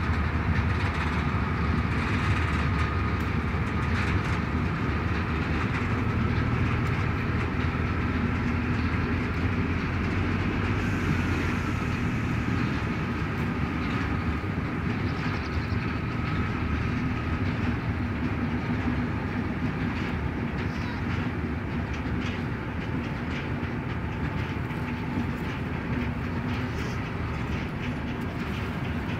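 Diesel-hauled train running along the line: a steady engine drone under wheel clatter on the rails, with a faint high whine over it, growing a little quieter over the second half.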